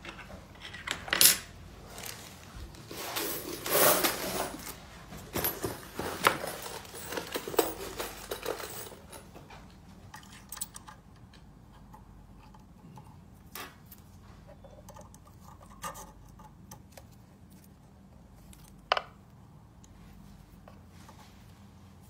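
Metal clattering and scraping from the key clamp of a key cutting machine being handled, dense and irregular for the first several seconds, then a few isolated clicks and one sharp clink. No cutter motor is running.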